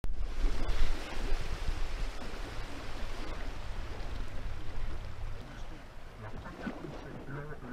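Steady road and engine rumble heard from inside a moving coach, louder in the first second and then slowly fading.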